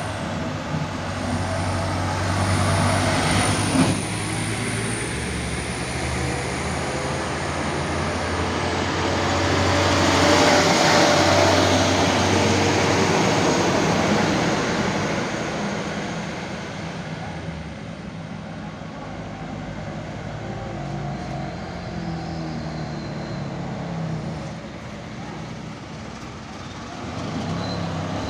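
Truck diesel engines running as several trucks pass one after another, with tyre and road noise; loudest as one goes by around ten to twelve seconds in.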